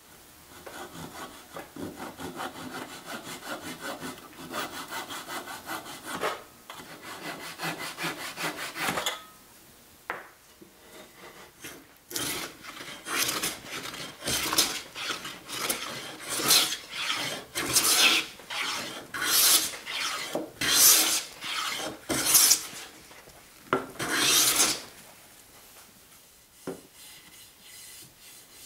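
A fine-tooth hand saw cutting protruding wooden dowels off flush, in quick even strokes for about nine seconds. After a short pause, a hand plane takes a run of separate shaving strokes along wood, about one a second, which are louder than the sawing and stop near the end.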